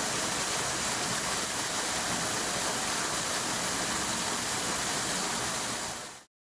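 Steady, even hiss of rushing noise with no distinct events, cutting off abruptly near the end.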